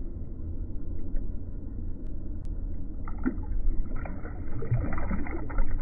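Muffled low sloshing of water, with light splashes from about three seconds in as a released smallmouth bass kicks away at the surface.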